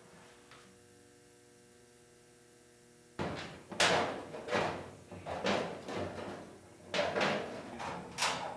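A steady low hum for about three seconds, then a run of about eight short, rough scraping sounds, each lasting under a second.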